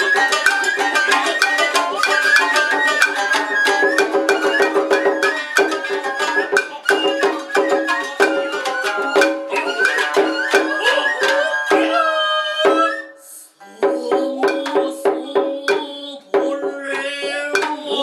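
Traditional Japanese nagauta ensemble music: shamisen plucking under a bamboo transverse flute's held and sliding notes, with strikes from a stick-played taiko and kotsuzumi shoulder drums. The music thins briefly about two-thirds of the way through, then picks up again.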